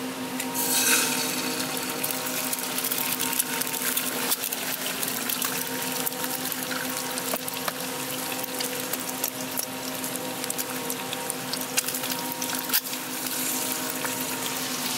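Egg frying in hot oil in a nonstick frying pan: a burst of sizzling as the egg hits the oil about half a second in, then steady sizzling with fine spitting crackles. A steady low hum runs underneath.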